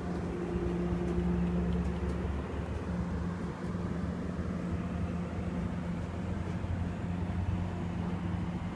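MBTA diesel commuter train pulling away: the steady low drone of its diesel locomotive, with the rolling noise of the bi-level coaches.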